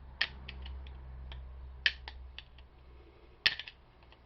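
Small sharp metal clicks and ticks, irregular, as a screwdriver pries at a small steel snap ring on a door handle's mechanism, with a louder click about three and a half seconds in.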